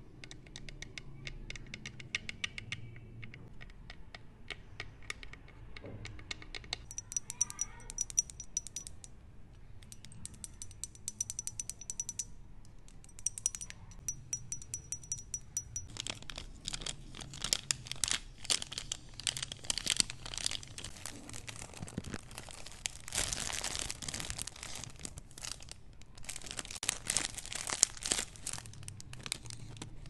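Long acrylic fingernails tapping and clicking rapidly on a carved wooden box. About halfway through, this gives way to a plastic wet-wipe sachet being crinkled and torn open, the loudest crinkling about three-quarters of the way in.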